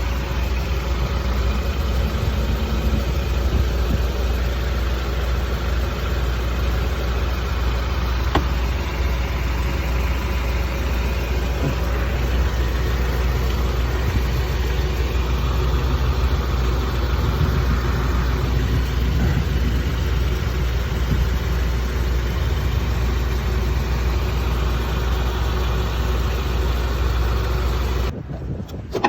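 2007 Honda Accord running steadily: a low engine drone with faint steady tones above it. The sound cuts off sharply near the end.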